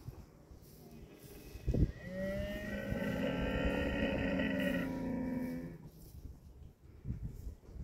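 Dromedary camel calling: one long, low call with several tones, lasting about four seconds. A sharp thump comes just before it, about two seconds in.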